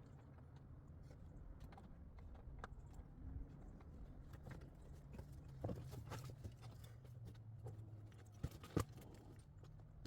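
Irregular sharp knocks and clicks of hard objects striking, over a low steady rumble, with two louder knocks in quick succession near the end.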